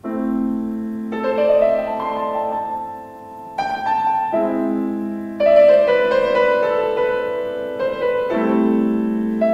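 Slow piano music: held chords that change every second or two, dipping softer around the third second.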